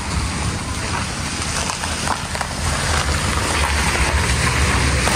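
Street traffic: a motor vehicle driving past with a low engine rumble and tyre hiss, growing louder through the second half.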